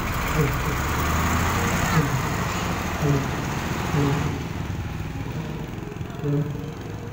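Heavy flatbed truck hauling a crawler bulldozer drives past on a dirt road, its diesel engine and rolling noise loud at first, then dropping off sharply about four seconds in as it moves away.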